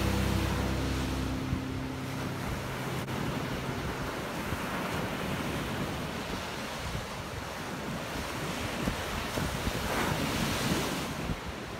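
The last held notes of a song die away in the first couple of seconds, leaving ocean surf washing steadily with wind buffeting the microphone; a wave swells up louder near the end.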